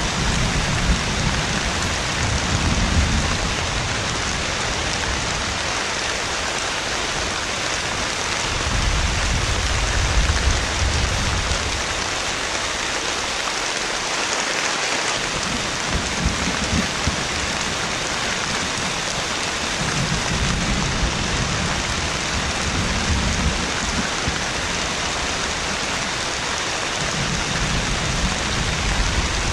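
Heavy rain falling steadily with an even hiss, while low thunder rumbles rise and fade several times.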